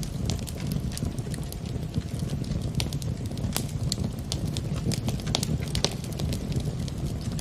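Wood fire burning in a fireplace: a steady low rumble of flames with frequent, irregular sharp crackles and pops.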